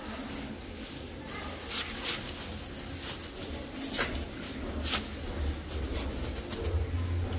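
Black plastic bag crinkling and rustling as raw mutton pieces are shaken out of it into an aluminium pot, with a few sharp crinkles about two, three, four and five seconds in. A low rumble builds near the end.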